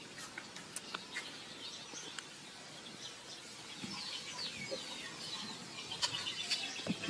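Birds chirping: a run of short, quick, falling high chirps from about halfway on, with a few sharp clicks scattered through.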